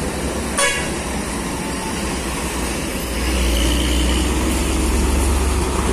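Heavy diesel truck engines running as they pass at low speed, a low rumble that grows louder about three seconds in as a second truck draws close. A short sharp sound about half a second in.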